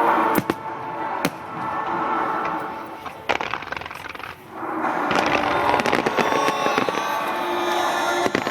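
Aerial fireworks bursting: a few separate sharp bangs in the first seconds, then a dense run of crackling reports from about five seconds in, over a steady background din.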